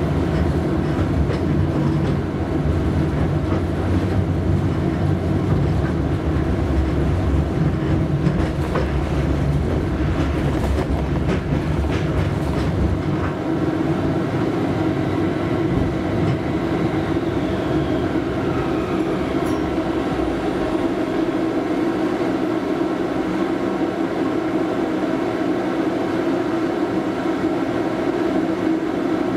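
Toyama Chitetsu 0600-type low-floor tram heard from inside the car: motor and wheel rumble while running, then a falling electric whine as it slows. A steadier, quieter hum follows.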